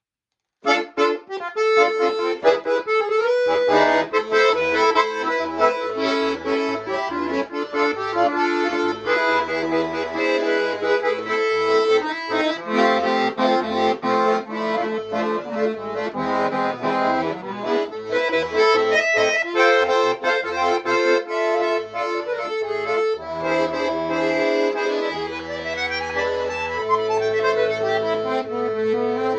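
Shuya-made 'Romans' bayan (Russian button accordion) being played: a melody on the right-hand buttons over changing left-hand bass notes, starting suddenly about half a second in.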